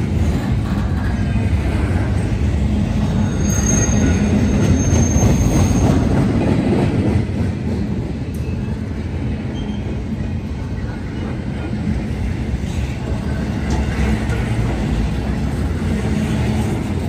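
Norfolk Southern intermodal freight train's cars rolling past, a steady low rumble of steel wheels on rail that swells a few seconds in and then eases slightly. A brief thin high-pitched wheel squeal rides over it about four seconds in.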